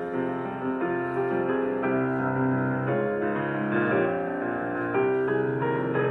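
Slow, gentle piano music: sustained notes and chords changing every half second or so.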